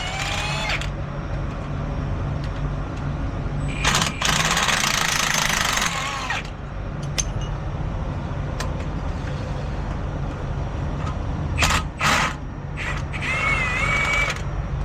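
Truck engine idling with a steady low hum, a loud hiss of air lasting about two seconds about four seconds in, and two sharp clicks near the end.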